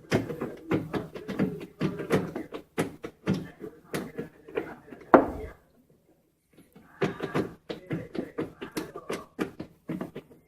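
Screwdriver turning out a mounting screw of an over-the-range microwave: a run of small clicks and knocks, with one louder knock about five seconds in.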